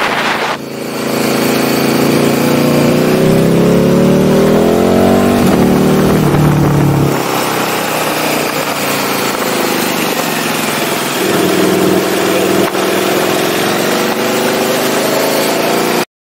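Indian motorcycle engine under way, its revs climbing and dropping back several times through the gears, with wind rush on the microphone. The sound cuts off suddenly near the end.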